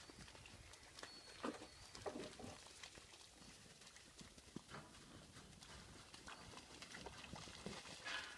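Faint, scattered footfalls of cattle hooves and boots on frozen, muddy ground, with a few louder thuds.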